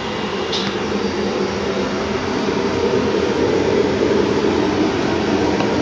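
Cremation furnace running: a steady, loud rushing of its burners and air blower, slowly growing louder.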